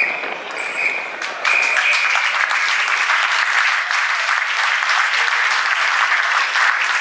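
Spectators clapping and applauding, the clapping swelling about a second and a half in and then holding steady. A long whistle note sounds over it in the first two seconds.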